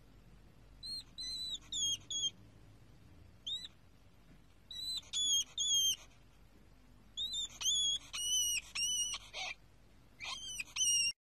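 Newborn hedgehog giving high, thin peeping squeaks in short runs of one to five. Each peep is brief and slightly dipping in pitch, and the calls stop abruptly near the end.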